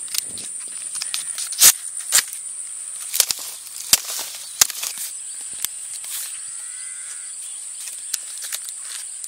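Dry palm leaf sheath being cut and split with a machete: a run of sharp cracks and snaps, the loudest about two seconds in. A steady high-pitched insect buzz runs underneath.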